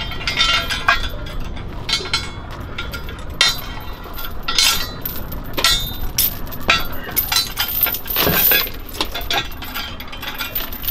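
Anchor chain clinking and clanking as the anchor is hauled aboard a small boat by hand and set down inside it: an irregular run of sharp metallic clanks.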